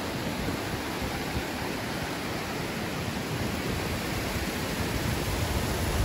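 Steady rushing of water from small cascades spilling over mossy travertine into a river pool, with a few low bumps near the end.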